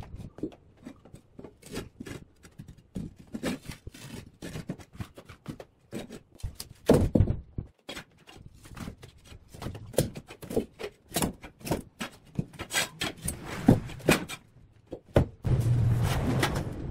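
A heavy log being levered and shifted with a steel pry bar: irregular knocks and thuds of wood and metal on a concrete floor, a few of them sharp and loud. A steadier noisy sound with a low hum starts near the end.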